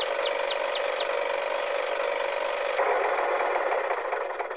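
Small electric motor of a homemade toy tractor running steadily, with a rubbing, rattling drive. The sound grows rougher about three seconds in and fades out near the end.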